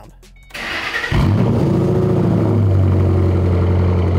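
A 2005-2010 Mustang GT's 4.6-litre three-valve V8 starting through a stainless axle-back muffler-delete exhaust: it fires about a second in, runs briefly high and uneven in the start-up flare, then settles to a steady idle about two and a half seconds in.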